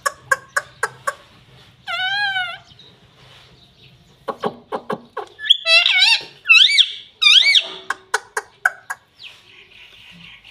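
Indian ringneck parakeets calling: short, harsh calls with a wavering pitch about two seconds in, then a quicker series of them from about six to eight seconds in. Runs of rapid clicks come just before each set of calls.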